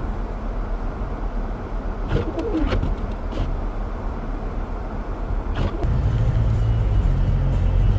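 A car driving on snowy roads: a steady rush of road and wind noise, with a few short squeaks about two seconds in and a low hum that grows louder near the end.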